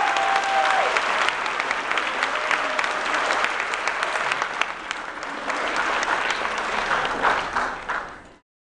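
Audience applauding, a dense patter of many hands clapping, fading out and cutting off just before the end.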